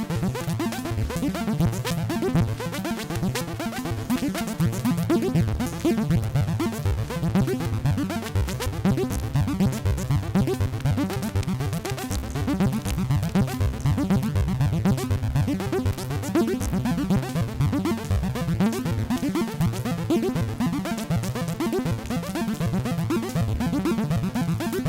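Dave Smith Instruments Prophet '08 analog synthesizer playing a steady stream of short, quickly repeating notes in the low register.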